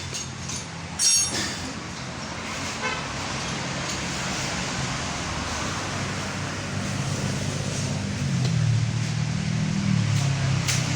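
Car engine running steadily, getting louder from about eight seconds in, with a brief metallic clink about a second in.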